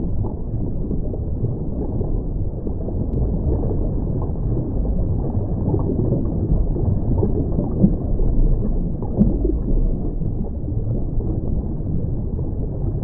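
Underwater sea ambience: a steady, muffled low rumble of moving water with scattered small bubbling blips.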